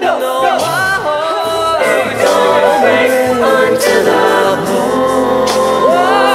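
A recorded song plays: a singing voice over layered vocal harmonies and accompaniment.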